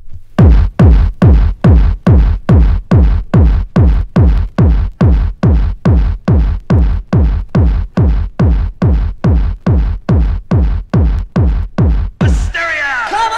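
Intro of a 1990s makina track: a lone electronic kick drum beating about twice a second, each kick dropping in pitch. Near the end the kick stops and a falling synth sweep with a hiss comes in.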